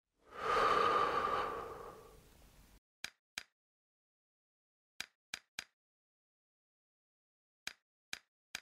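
A loud breathy sound that swells and fades over about two seconds, then eight sharp taps in small clusters: a ballpoint pen tapping on a wooden table.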